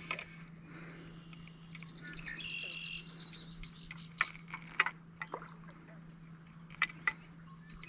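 Songbirds singing and chirping, with a few sharp clicks around the four- and seven-second marks, over a steady low hum.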